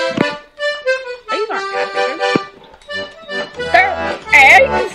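Background music of held, steady notes, with a few sliding pitches near the end.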